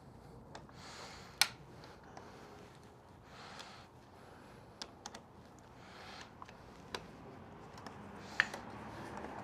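Scattered light clicks and taps with soft rustling, the sound of small parts and hand tools being handled during motorcycle work. The two sharpest clicks come about a second and a half in and near the end.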